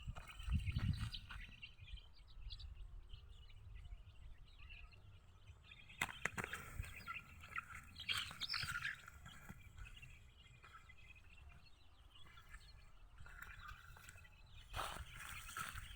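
Poultry chirping and calling faintly, in scattered short calls, with a sharp knock about six seconds in.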